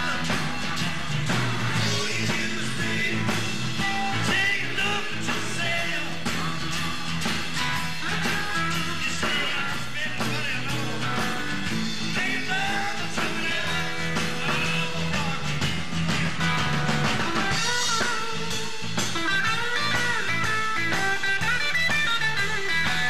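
A live blues-rock band plays: electric guitar and drums, with a man singing.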